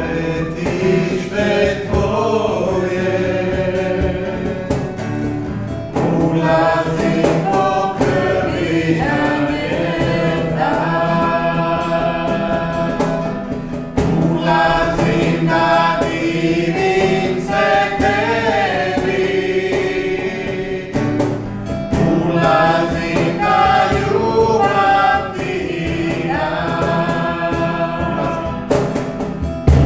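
A man and a woman singing a worship song together, accompanied by a strummed acoustic guitar.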